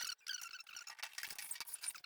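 Repeated high-pitched squeaky chirps, wavering in pitch and coming on and off several times.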